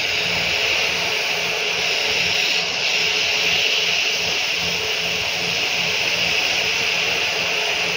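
Hot air rework station nozzle blowing a steady hiss of air, set to airflow 80 and 360 °C, heating a phone mainboard's LCD connector to melt its solder for removal.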